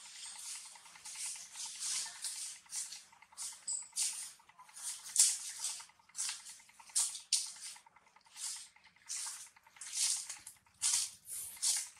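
A newborn monkey suckling at its mother's nipple: a string of short, soft wet smacks, about two a second and unevenly spaced.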